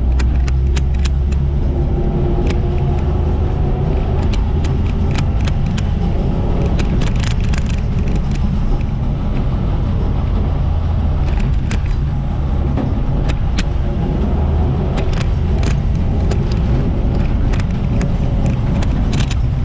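1958 Ford F100 panel truck driving, a steady low engine and road rumble with frequent light rattles and jingling clicks throughout.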